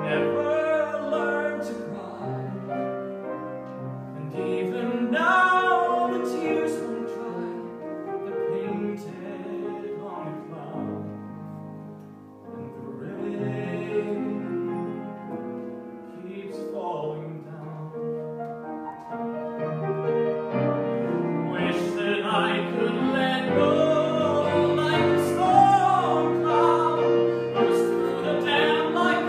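A young man singing a musical-theatre ballad with vibrato over a piano accompaniment. The music dips quietly about twelve seconds in, then swells louder and fuller toward the end.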